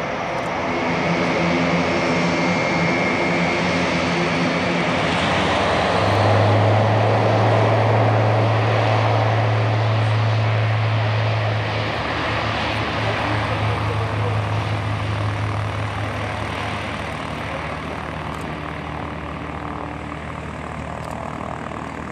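Airbus A400M's four TP400-D6 turboprop engines at takeoff power, their eight-bladed propellers droning as the airlifter makes its takeoff roll and lifts off. A deep steady tone comes in about six seconds in, it is loudest over the next several seconds, and it fades as the aircraft climbs away.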